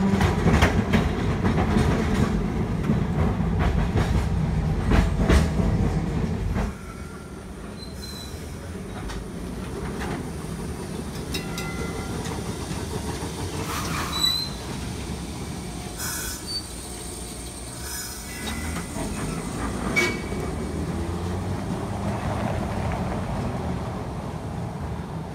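Streetcar running on its rails, a loud low rumble with clicks from the wheels over the track, which drops away suddenly about seven seconds in. After that it is quieter, with a few short high-pitched wheel squeals.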